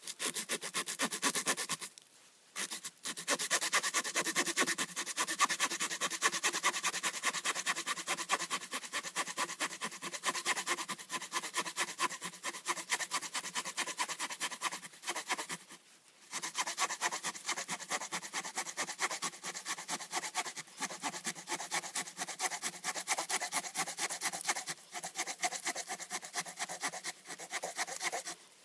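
The small folding saw blade of a Victorinox Farmer pocket knife cutting through a thick piece of wood in quick back-and-forth strokes, pausing briefly about two seconds in and again about halfway through.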